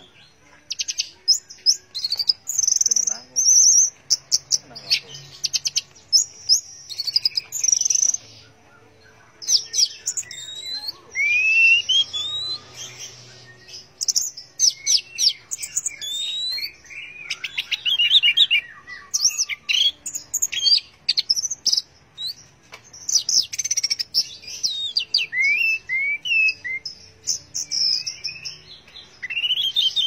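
Orange-headed thrush singing a long, varied song: loud whistled phrases, fast trills of repeated notes and short rising glides, strung together with only brief pauses.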